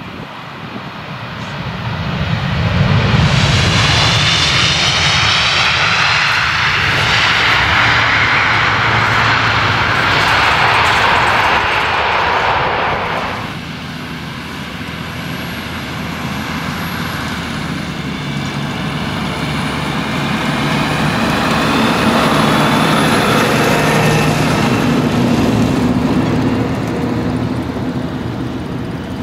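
Jet engines of Airbus A320-family airliners landing. A loud engine roar swells about two seconds in as the Vueling A320 rolls out after touchdown and holds for about ten seconds, then stops suddenly. A steadier engine sound with a faint high whine follows from the next airliner, an Air France A319; it builds to a second loud stretch and eases off near the end as that plane touches down.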